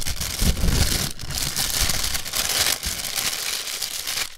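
Plastic packaging crinkling and rustling as gloved hands unwrap and handle it, with a few dull handling bumps in the first second.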